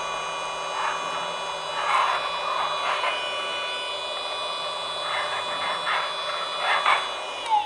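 Mini USB desktop vacuum cleaner running with a steady high motor whine, with several bursts of rattling hiss as loose tea leaves are sucked up. Near the end it is switched off and the whine slides down and fades.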